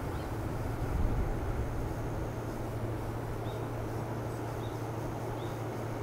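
Outdoor forest ambience: a steady low hum and rumble, with a gust of wind buffeting the microphone about a second in, and a few short high bird chirps in the second half.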